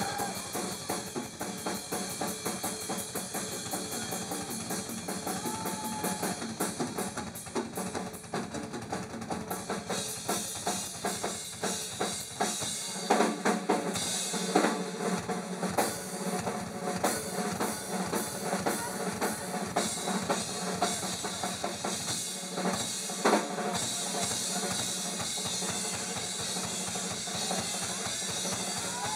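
Rock drum kit played live: fast, dense strokes across the bass drum, snare and cymbals, with a run of louder accented hits about halfway through. Heard from within a club audience.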